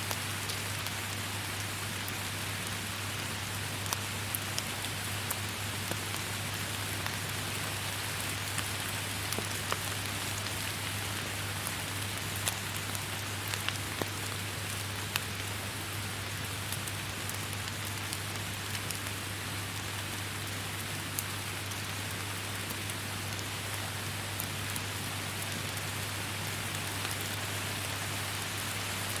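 Steady forest rain: an even hiss of falling rain with many scattered sharp drops striking close by, over a low steady hum.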